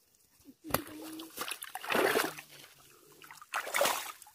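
Water splashing and sloshing in uneven bursts as a landed rohu is handled in a net bag in shallow water, the loudest splashes about two seconds in and again near the end.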